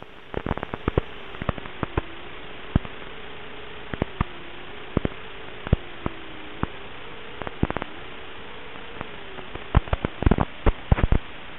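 Radio static from an analog FPV video receiver's recording: a steady hiss with a faint wavering hum, broken by scattered crackling clicks that bunch together near the end.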